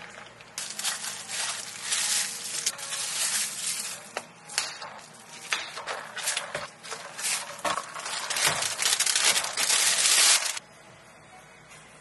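Clear plastic film crinkling and rustling as it is wrapped around the domed lids of iced takeout cups, with many small crackles and clicks; it stops suddenly near the end.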